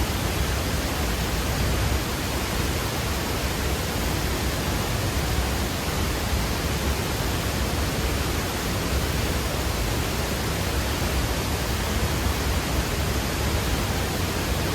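A large waterfall's water rushing steadily, an even, unbroken noise with a deep low rumble beneath it.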